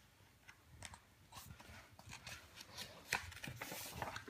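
Pages of a large paperback picture book being handled and turned: soft paper rustles and taps, with a louder rustle as a page turns about three seconds in.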